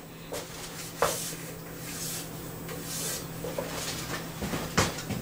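Knocks and rubbing of a metal vacuum pallet being handled on a CNC mill table, with a sharp knock about a second in and two more near the end. Under them runs the steady hum of the vacuum pump holding the table down, which is a little noisy.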